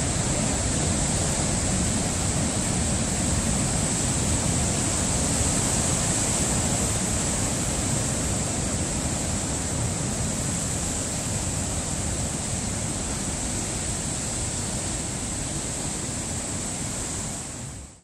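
Heavy ocean surf breaking and churning white water around coastal rocks, a steady rushing noise that fades out just before the end.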